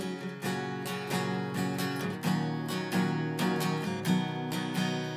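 Acoustic guitar strummed in a steady rhythm: an instrumental break between the sung lines of a Bengali folk song.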